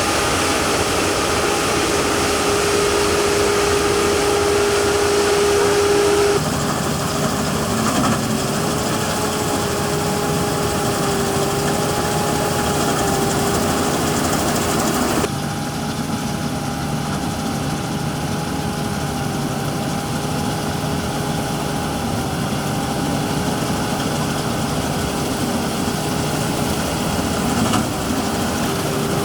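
Claas combine harvester engine running steadily, a continuous mechanical hum with a held mid-pitched tone. The sound drops and changes character abruptly twice, about six seconds in and again about fifteen seconds in.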